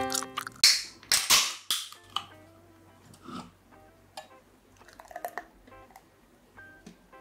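Three short, loud hisses about a second in, then beer poured from a can into a tall glass, with quiet splashing, fizzing and small clicks.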